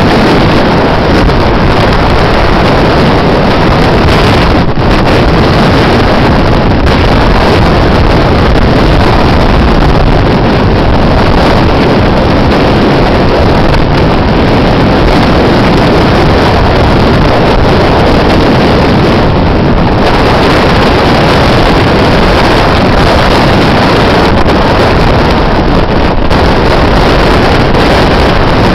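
Storm wind at the sea blowing hard and steadily across the microphone.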